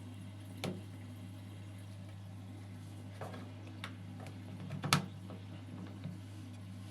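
A steady low hum with a handful of separate clicks and knocks, the loudest about five seconds in.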